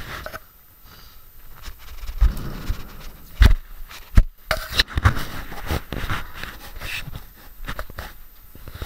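Handling noise from a handheld camera being moved about quickly: rustling and scraping with several sharp knocks, the loudest about three and a half and four seconds in.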